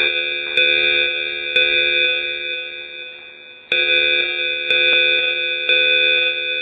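Emergency-alert attention chime: a bell-like multi-tone chime struck in sets of three about a second apart, each strike ringing and fading, with a pause of about two seconds before the next set.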